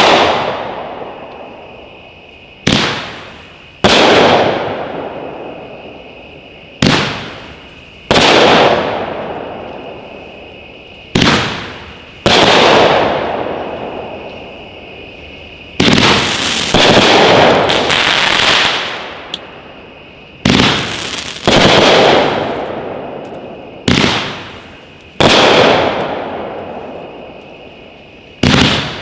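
Angled 28-shot 500-gram fireworks cake (OMG Fireworks' Insane Asylum) firing: each shot goes up with a short sharp launch crack and breaks about a second later in a louder burst that trails off, repeating every few seconds.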